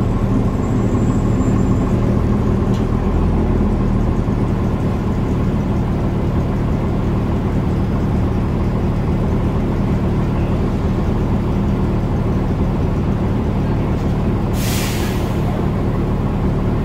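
Airport shuttle bus idling, heard from inside the cabin: a steady low engine hum. Near the end comes one short hiss of compressed air from the bus's air system.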